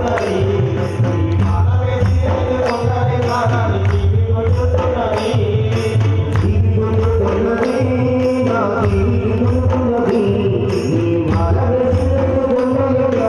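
Ayyappa devotional bhajan music: a melodic line over a steady beat, with jingle strikes about twice a second.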